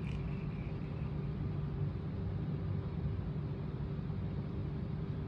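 Steady low hum with an even background noise, no distinct clicks or knocks.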